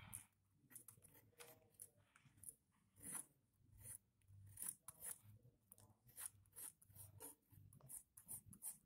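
Faint scratching of a pencil on paper: short, quick sketching strokes one after another, several a second, with little gaps between them.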